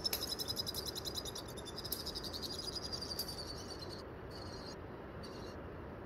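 A high-pitched animal trill, a fast run of about ten pulses a second lasting some three seconds, then two short bursts of the same trill, over a steady low background hiss.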